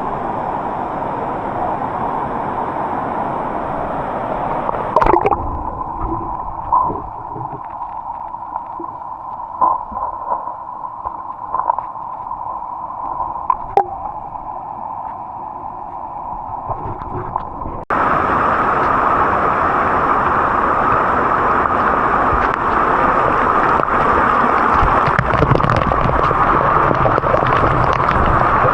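Steady rush of a waterfall's falling water, changing abruptly about five seconds in and again near eighteen seconds, when it becomes louder. A few short sharp sounds stand out in the middle stretch.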